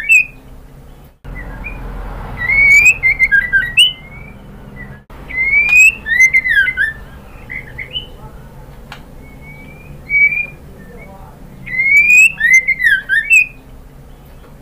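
Female white-rumped shama (murai batu) calling to a male. A clear whistle rises and is followed by a quick run of down-slurred notes. The phrase comes three times, a few seconds apart, with a shorter, softer call between the last two.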